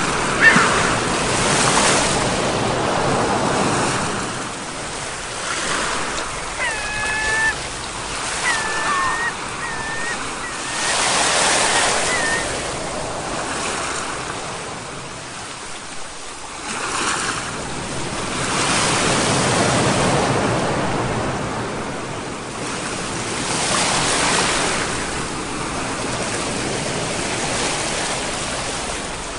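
Ocean waves breaking and washing ashore, the surf swelling and falling back every several seconds. A run of short high chirps sounds near the middle.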